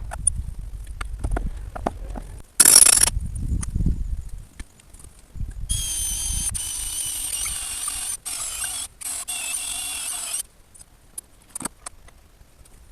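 Cordless power drill running in a long steady whine, stopping briefly a few times, with a short loud burst and scattered knocks and clicks of timber and bolt work around it.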